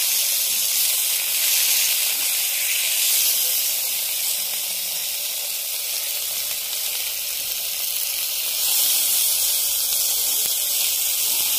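Marinated chicken pieces sizzling in hot oil in a cast-iron skillet, a steady frying hiss.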